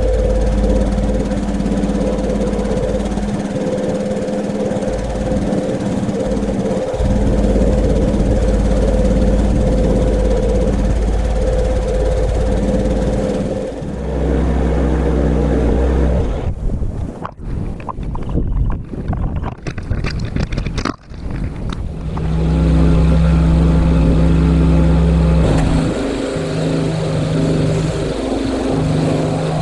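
Pressure washer running with a steady motor hum and spray noise; its pitch shifts a couple of times, and the sound turns choppy and broken for several seconds in the middle.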